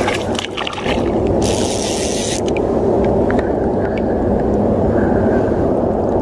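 Steady low rumble of wind buffeting the microphone while a hooked smallmouth bass splashes at the surface, with one brief rushing splash about a second and a half in.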